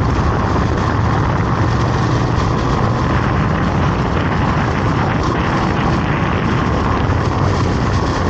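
A vehicle's engine running steadily on the move, a low drone with a faint higher whine over a constant rush of road and wind noise.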